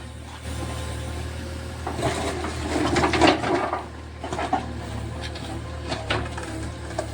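A JCB backhoe loader's diesel engine running steadily, with irregular crunching, scraping and knocks from the machine working on a house being demolished. The loudest stretch is about two to three and a half seconds in.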